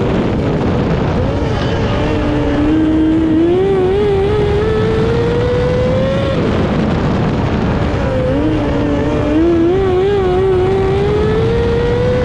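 Micro sprint car engine heard from on board at racing speed on a dirt oval, over a heavy low rumble. Twice, just after the start and about six and a half seconds in, the engine note drops sharply as the driver lifts for a turn, then climbs steadily back up under throttle.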